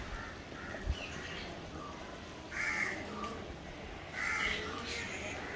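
A crow cawing: short harsh caws, two louder ones a couple of seconds apart with fainter calls before them.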